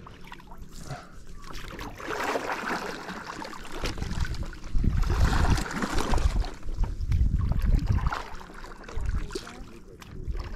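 Water swishing and splashing as a paddleboard is paddled, coming in several surges a couple of seconds apart.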